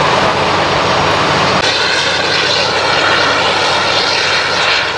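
Airliner engines running, a loud, steady noise that shifts about one and a half seconds in to a brighter, higher hiss.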